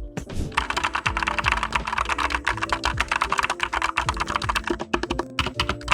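Fast typing on a Redragon K551 Vara mechanical keyboard with red switches: a rapid, dense clatter of keystrokes with a short pause near the end.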